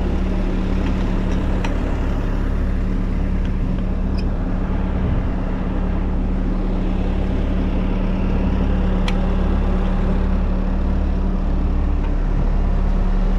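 Bobcat skid-steer loader's diesel engine running at a steady speed, with a few faint clicks over it.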